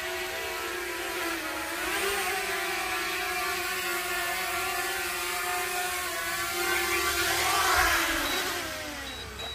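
Small quadcopter drone's propellers whirring in a steady high hum, the DJI Mavic Mini. The hum grows louder about eight seconds in, then drops in pitch and fades away near the end.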